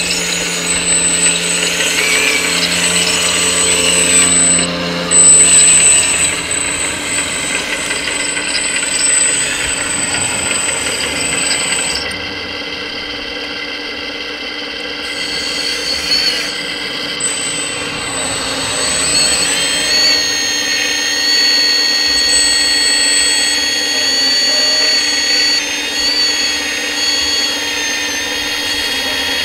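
Kabolite 336 RC hydraulic excavator's electric motor and hydraulic pump running with a steady high whine as the boom and bucket are worked. The pitch of the whine shifts about two-thirds of the way through.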